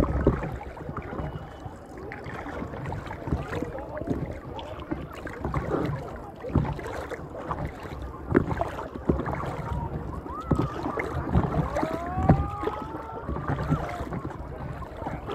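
Paddle strokes splashing and water lapping against an inflatable paddleboard, with wind on the microphone. A few short rising squeaks come about two-thirds of the way through.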